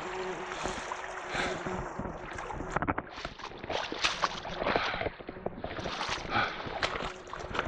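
Shallow seawater washing and lapping over beach cobbles at the water's edge, with wind buffeting the microphone and a few irregular knocks of stones.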